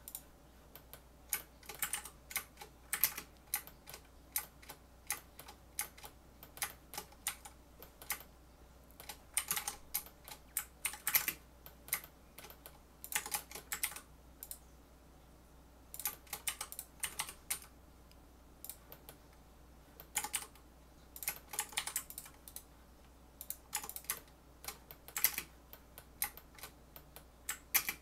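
Computer keyboard keys tapped in irregular clusters of quick clicks, as hotkeys are pressed while working in 3D modelling software. Under them runs a steady low hum from a fan in the room.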